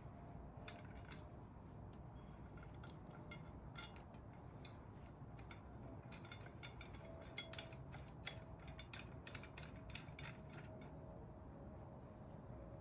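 Scattered light clicks and metallic clinks of parts being handled, thickest in the middle of the stretch, over a faint steady hum.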